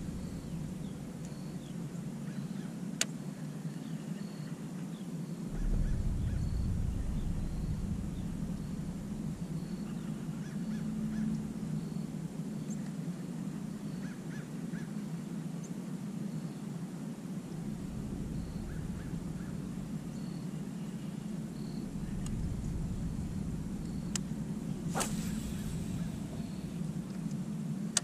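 Distant geese honking now and then in short groups of calls over a steady low outdoor hum, with low rumbles coming and going and a single sharp click near the end.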